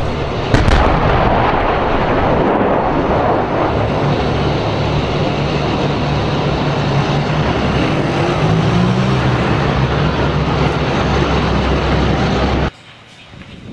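Tank main gun firing: one sharp bang about half a second in. A loud, steady heavy-engine rumble follows, rising in pitch briefly about eight seconds in, and cuts off suddenly near the end.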